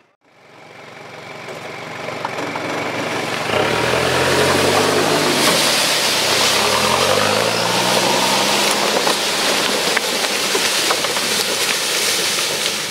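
Off-road buggy's engine revving, its pitch rising and falling as it passes close and pulls away, dragging a bundle of logs along a dirt track. A steady scraping, rushing noise of logs and tyres on the ground runs under it.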